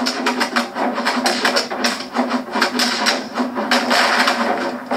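Cartoon fight sound effects: a rapid string of punch and block hits, several a second, over a steady low hum.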